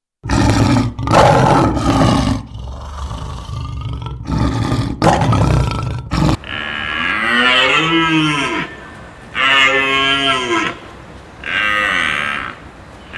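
Cattle mooing: three long, loud calls, each rising and then falling in pitch. Before them come several loud, rough, noisy bursts.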